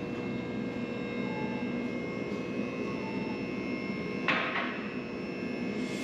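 Electric hydraulic power unit of a two-post vehicle lift humming steadily as it raises a side-by-side, with one sharp clack about four seconds in.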